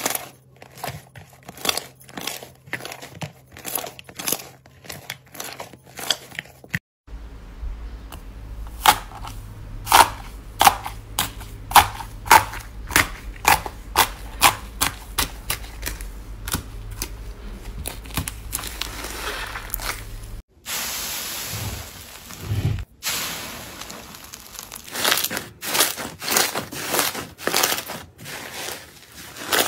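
Hands squeezing, kneading and pressing slime, making a quick series of sharp, wet clicks and pops as trapped air is squeezed out. A short steady hiss comes a little past two-thirds of the way through and cuts off suddenly.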